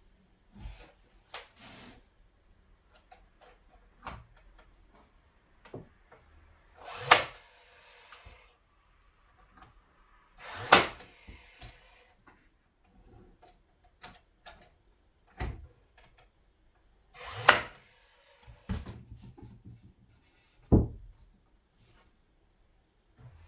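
Knocks and bangs of a wooden door frame kit being put together, with three loud, sharp strikes a few seconds apart and softer knocks between them.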